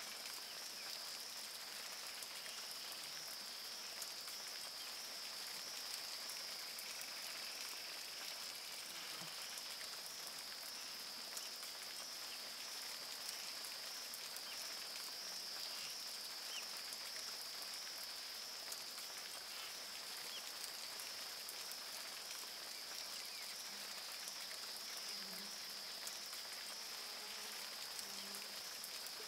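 Tropical rainforest ambience: a steady, high-pitched animal chorus that pulses gently about once a second, over an even hiss of rain.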